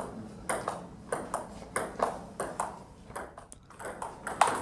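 Table tennis rally: the celluloid-type plastic ball clicking sharply off the paddles and the table, a hit or bounce roughly every half second to second, some in quick pairs.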